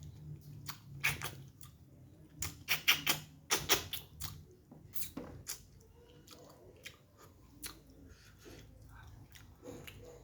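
Close-miked eating sounds: a person chewing with wet lip smacks and mouth clicks, a quick run of louder smacks a few seconds in, then softer chewing.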